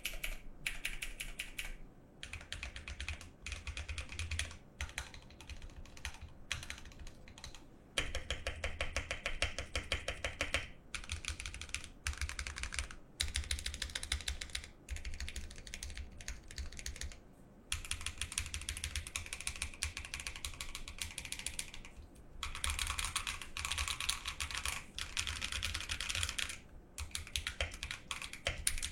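Typing on a custom mechanical keyboard built from a Vortex VX5 Pro board in an acrylic sandwich case, with lubed Akko CS Lavender Purple switches and PBT double-shot keycaps: rapid keystrokes in runs of several seconds, broken by short pauses.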